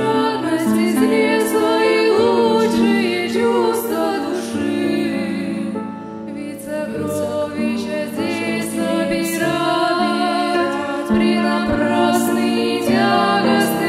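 A live Christian worship song: voices singing over instrumental backing, with light percussion ticking. It drops briefly quieter about six seconds in.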